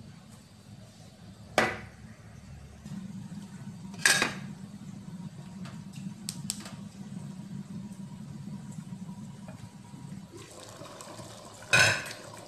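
Sharp metallic clanks from an aluminium cooking pot and its lid, two loud ones early on and a few light clicks, over a low steady hum. Near the end a hiss of simmering curry comes up and the lid comes off the pot with another loud clank.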